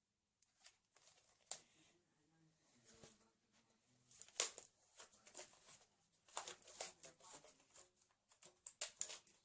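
Faint rustling and scattered clicks of a homemade paper-roll rubber-band shotgun being handled and reloaded, the loudest click about four and a half seconds in and a cluster of them near the end.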